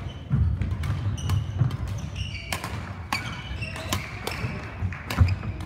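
Badminton play on an indoor court: sharp racket strikes on the shuttlecock every half second or so, short shoe squeaks on the court floor, and thudding footsteps.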